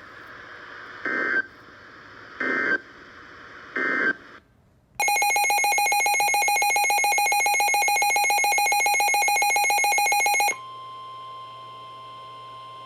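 NOAA Weather Radio alert signalling over faint radio hiss. Three short data bursts of the SAME alert header come about a second and a half apart. About five seconds in, the weather radio's own alarm starts: a loud, rapidly pulsing electronic buzz lasting about five and a half seconds. It then gives way to the broadcast's steady 1050 Hz warning alarm tone, which is quieter.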